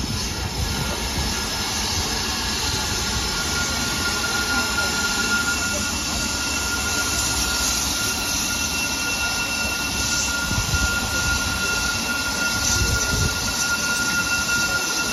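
BR Standard Class 9F steam locomotive standing at rest, steam hissing steadily from it with a thin, steady high-pitched tone running through the hiss.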